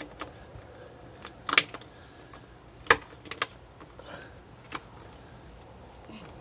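A few separate sharp clicks and taps of hard plastic and metal being handled while mounting a doorbell bracket, the loudest about one and a half and three seconds in.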